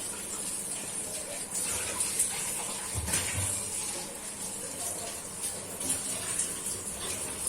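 Marinated chicken frying in hot ghee in a pan: a steady sizzling hiss, with a low thump about three seconds in.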